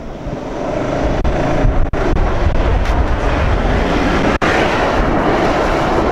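Ford Endeavour 3.2-litre five-cylinder diesel SUV accelerating hard over sand and passing close by. The engine and the rush of its tyres throwing sand get louder over the first second or two, then stay loud as it goes past.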